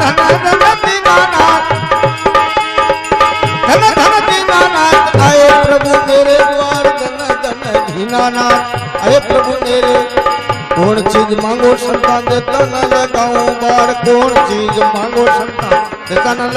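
Instrumental interlude of a Rajasthani bhajan: a harmonium holds and moves through sustained chords while a hand drum keeps up a quick, busy rhythm.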